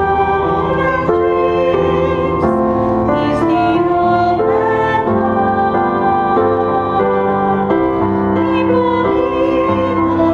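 Hymn played on a digital piano with a flute carrying the melody, a steady run of held notes.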